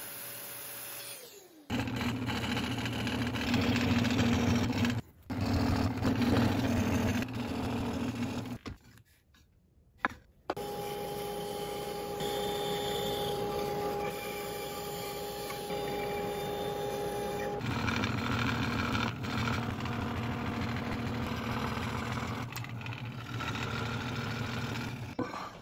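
Woodworking machines cutting wood one after another, with abrupt changes between them. A drill press spins down after boring with a Forstner bit. In the middle a bandsaw runs with a steady hum, and near the end a scroll saw cuts.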